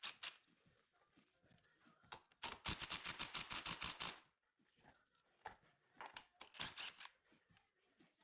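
Ratchet wrench clicking in fast runs: a steady string of clicks for about a second and a half, starting about two seconds in, then shorter runs of clicks near the end.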